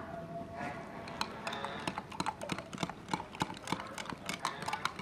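Metal spoon clinking against the inside of a glass jar as it is stirred, a quick, irregular run of sharp clinks, several a second, that stops abruptly at the end.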